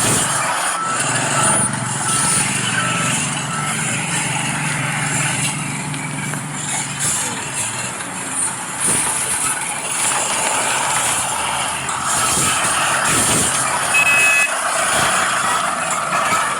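Scale RC heavy equipment, an excavator and a bulldozer, working with a steady diesel-style engine sound. A faint series of short beeps, like a reversing alarm, sounds in the first few seconds.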